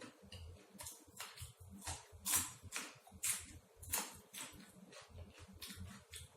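A person chewing food close to the microphone: irregular wet crunches and mouth clicks, a few louder crunches around the middle.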